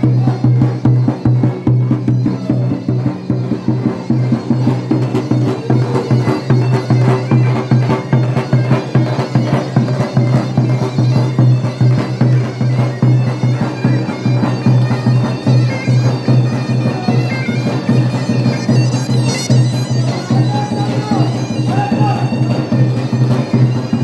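Zurna playing a fast horon melody over the steady, rapid beat of a davul, with a steady low hum underneath.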